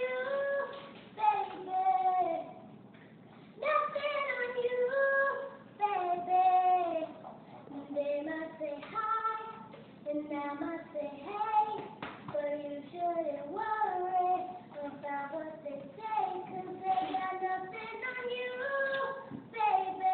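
A young girl singing a song solo, long sung phrases with short breaths between them and a longer pause about three seconds in.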